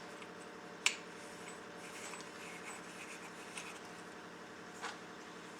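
Small metal parts being handled while a spanner nut is fitted onto a floor-sander clutch: a sharp click about a second in, a softer one near the end and a few faint ticks, over a steady background hum.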